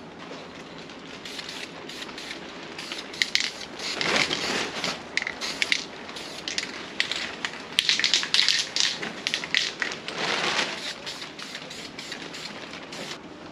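Aerosol can of self-etching primer spraying in many short hissing bursts, one after another.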